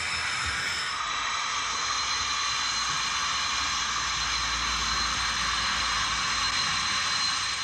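Digital sound decoder in an OO gauge Heljan Class 17 Clayton model diesel locomotive, playing its diesel engine sound through the model's small onboard speaker as it runs slowly. The engine sound is a steady, hissy note with a thin high whine, and a low rumble swells from about three seconds in to near the end.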